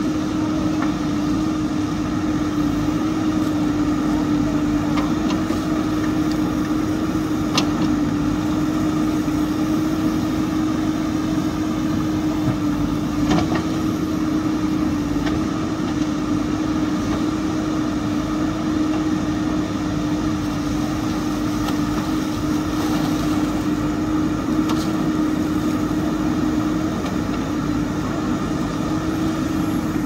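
JCB backhoe loader's diesel engine running at a steady speed with a constant hum while the rear bucket digs, with a couple of faint knocks.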